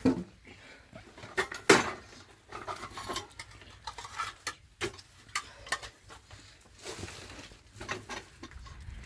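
Dishes and utensils knocking and clattering as they are handled: a string of irregular knocks and clinks, the loudest right at the start and just under two seconds in.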